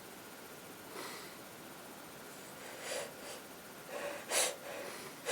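A person with a cold drawing a series of short, sharp, catching breaths, the build-up to a sneeze. The breaths come faster and louder over the last two seconds, the loudest about four and a half seconds in.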